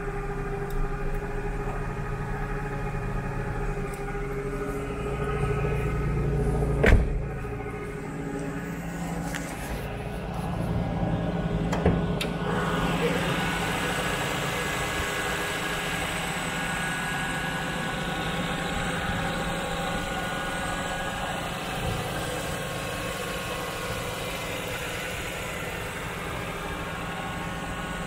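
Nissan Skyline R32's twin-cam 24-valve turbocharged straight-six idling steadily. There is a sharp knock about seven seconds in and another about twelve seconds in. After that the engine sounds brighter and more direct, as from the open engine bay.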